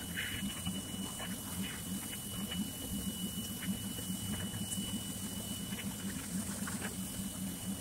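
Pressure washer running, its pump and motor giving a steady, fast-pulsing hum, with the hiss of the water spray and a thin, steady high whine over it.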